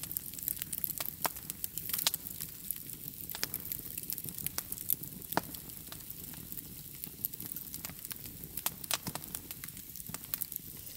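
Wood fire crackling softly, with irregular small pops and snaps over a faint hiss.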